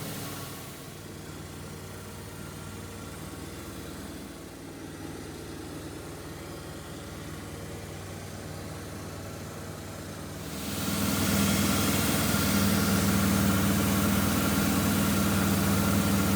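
A machine runs with a steady hum. About ten seconds in, a loud steady hiss joins it and the hum grows stronger.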